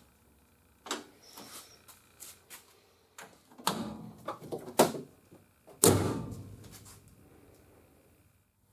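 Several sharp metallic clicks and knocks, then a car hood slammed shut about six seconds in, with a heavy thud that rings and dies away over a couple of seconds.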